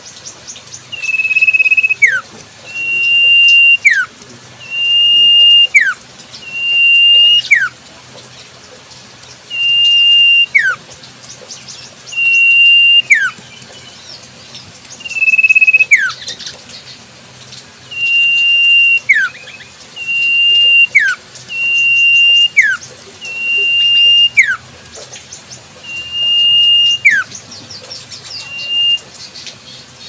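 Common iora (cipoh) singing its 'sirtu' call over and over: a clear whistle held on one note for about a second, ending in a sharp downward slide. It repeats roughly every two seconds.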